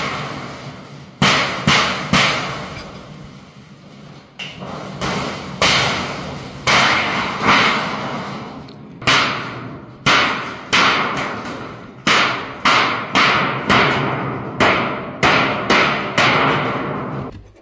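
Hammer blows on wood, each a sharp knock that rings on briefly. They come irregularly at first, then steadier at about one to two a second in the second half.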